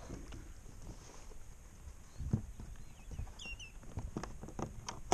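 A hooked redfish thrashing at the surface beside a kayak, making scattered splashes and knocks, one about halfway through and a quick cluster near the end.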